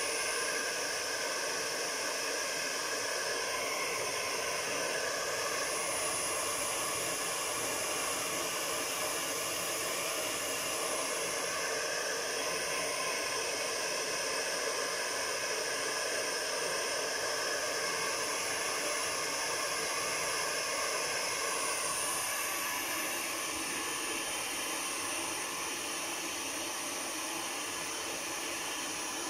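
Handheld hair dryer blowing steadily on a dog's wet fur, a constant rushing hiss that gets slightly quieter in the last few seconds.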